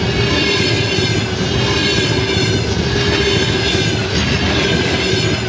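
Double-deck passenger coaches of a fast train passing close by: a steady, loud rumble of wheels on the rails, with a steady high ringing tone above it.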